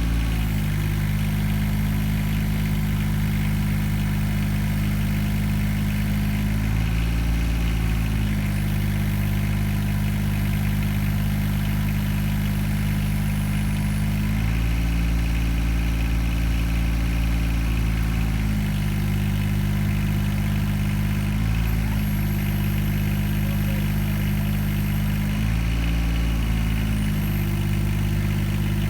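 Engine of an SDP Mini Arborist off-road forestry boom running steadily, its speed stepping up and holding higher four times, once for about four seconds, before settling back to idle.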